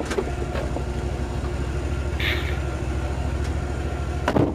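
Steady low engine hum of a vehicle moving slowly. A brief hiss comes about two seconds in, and a sharp click near the end.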